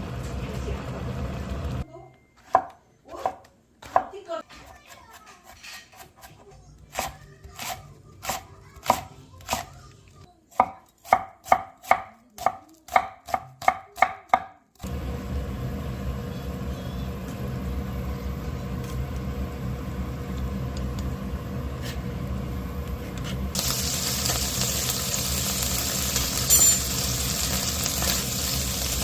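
Knife chopping on a cutting board: scattered strokes, then an even run of about two chops a second. This gives way about halfway through to a steady hiss of cooking, which turns brighter and a little louder near the end.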